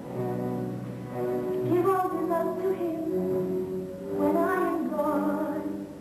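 A woman singing a slow melody in held, gliding notes over instrumental accompaniment in a musical theatre number.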